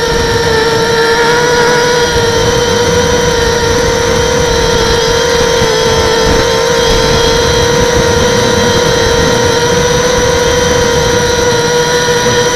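Brushless motors and propellers of an HK 250 mini FPV racing quadcopter in flight, a loud, steady whine with a ladder of higher overtones. A rough low rumble starts right at the beginning and runs under it.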